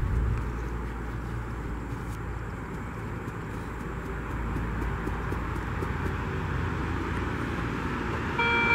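Steady ambient noise while dirt is worked by hand, then a short, single beep from the metal detector at the very end as its search coil is swept over the dug hole to recheck it for the target.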